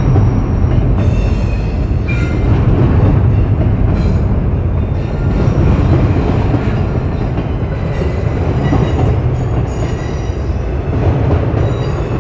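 Freight train rolling past, a loud steady rumble of wheels on rail, with faint high-pitched wheel squeals that come and go.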